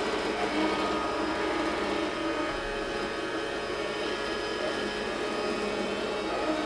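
Robot vacuum cleaner running steadily: an even whir of its suction motor with several constant whining tones.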